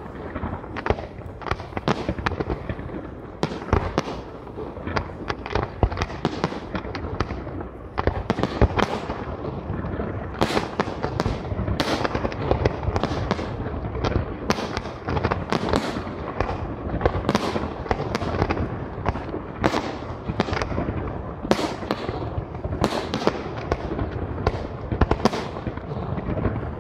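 Fireworks display: aerial shells bursting in quick, irregular succession, several bangs a second over a continuous rumbling haze of further bursts.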